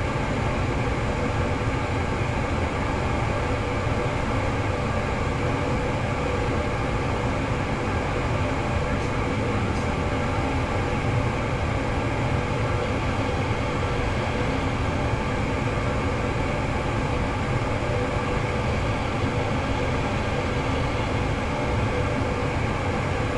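Furnace running steadily on a heat call, its circulating blower and burner giving a constant low rumble with a steady hum over it.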